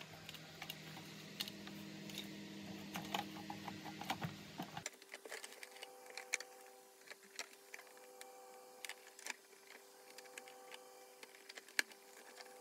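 Faint scattered clicks and knocks of a Zelmer Cobra vacuum cleaner's plastic housing and parts being handled, with one sharper knock near the end.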